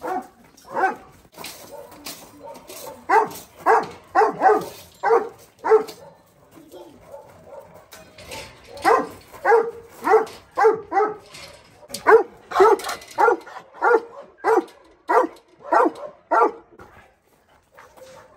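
Doberman dogs barking over and over, about two barks a second. The barking pauses for a couple of seconds about six seconds in, then starts again.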